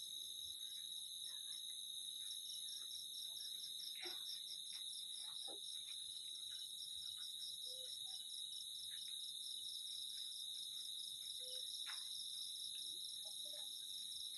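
Night insect chorus of crickets trilling steadily in several high-pitched layers, one of them pulsing rapidly, with a few faint clicks.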